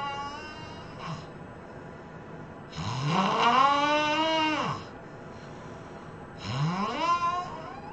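A person snoring loudly, in long pitched snores that slide up in pitch as each begins: the tail of one at the start, a full two-second snore about three seconds in, and another starting near the end.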